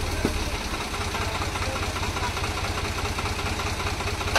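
Tractor diesel engine running steadily at low revs with an even low throb. A short sharp click comes just before the end.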